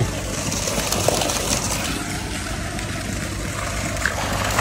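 A steady low machine hum under an even hiss of agitated water, as from the aeration running in a biofloc fish tank.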